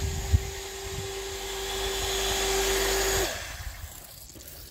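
Electric surface jet pump running with a steady hum and hiss, not building pressure because air is getting into the line. It is switched off about three seconds in and its pitch slides down as the motor stops. A single sharp knock comes just after the start.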